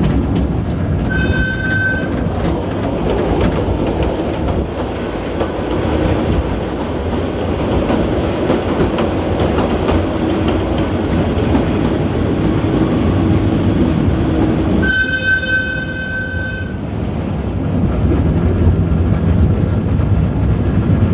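Kurobe Gorge Railway narrow-gauge train running, heard from an open passenger car, with a steady heavy rumble and clatter of wheels on rail. The locomotive's horn sounds twice, a short blast about a second in and a longer blast of nearly two seconds around three-quarters of the way through.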